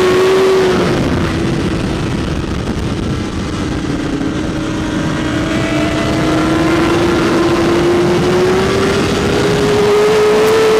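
BMW S1000RR sportbike's inline-four engine heard onboard at speed, under heavy wind noise. It pulls steadily, its pitch dipping slightly about a second in and then rising slowly.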